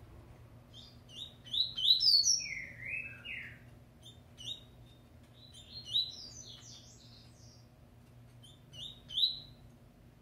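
A caged double-collared seedeater (coleiro) sings three bursts of quick, high chirping song. The first and loudest comes about two seconds in, a second around the middle, and a short one near the end.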